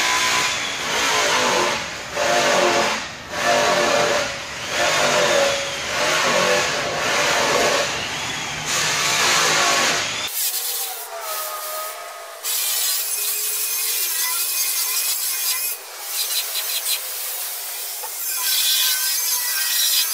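Microfiber rag rubbed by hand back and forth over a Peterbilt's polished aluminum nose grill, in strokes about once a second: the final wipe-down after polishing. About halfway through the rubbing suddenly sounds thinner and hissier, with quicker, shorter strokes.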